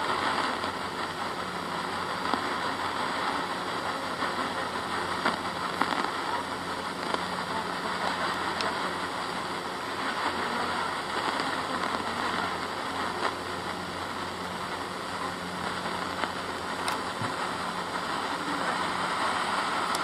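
Sony ICF-M260 portable radio on AM 1242 kHz giving a steady hiss of static, the station barely coming through. Reception is weak because, after the power cut, the broadcaster switched its AM transmission to a distant Tokyo transmitter.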